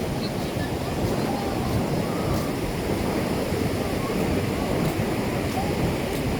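Ocean surf washing onto the shore as a steady rush, with faint distant voices.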